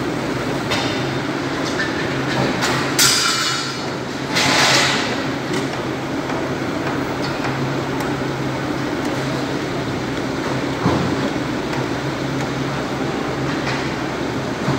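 A steady engine drone with a low hum, broken by two short hissing bursts about three and four-and-a-half seconds in.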